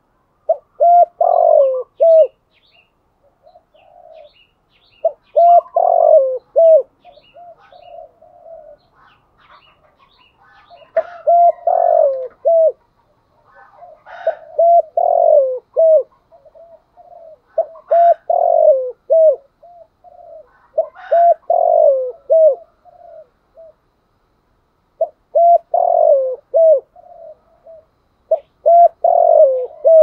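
Spotted dove cooing its song: about eight short phrases of a few low, rounded coo notes, repeated every few seconds.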